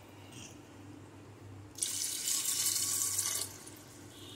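Water poured into a pressure cooker onto soaked chickpeas, running for about a second and a half starting about two seconds in.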